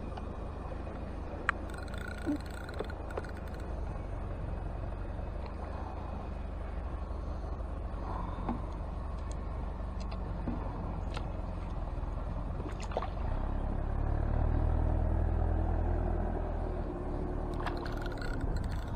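Wind rumbling on the microphone, swelling a few seconds before the end, with a few faint clicks from handling the reel. Near the end a hooked fish splashes at the surface close in.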